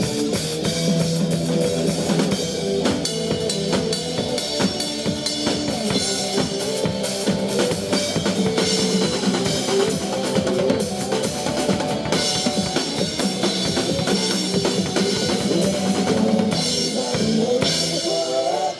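Pop-rock song in an instrumental passage without vocals, driven by a drum kit with bass drum and snare keeping a steady beat.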